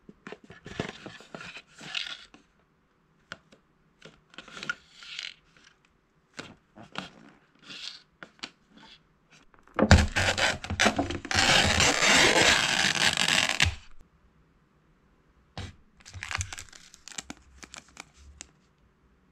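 Cup ramen packaging handled with crinkling, rustling and small clicks, then, about ten seconds in, the paper lid is peeled back from the rim of the cup with a loud tearing sound that lasts about four seconds. Near the end the plastic seasoning sachets crinkle in the hands.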